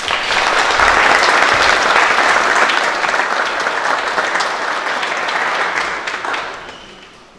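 Audience applauding: steady clapping that dies away near the end.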